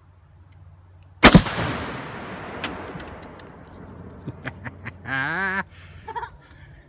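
Rifle-detonated half-pound charge of tannerite going off under a refrigerator, a single sharp double crack about a second in, hard enough to blow the fridge door off. A long rumbling echo dies away over the next couple of seconds.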